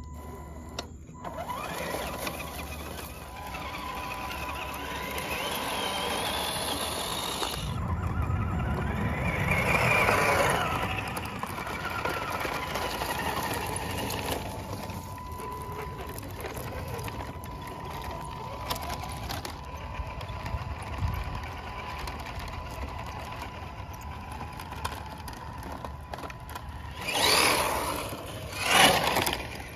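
Radio-controlled CC01 truck, converted to two-wheel drive, crawling over dry leaves while towing a boat trailer: its electric motor and gears whine with a steady high tone, and the tyres rustle through the leaves. Near the end come two loud rushing bursts.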